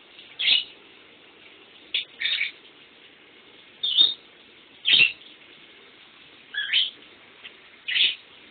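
Pet lovebird giving short, sharp chirps, about seven in all, spaced roughly a second apart at an uneven pace.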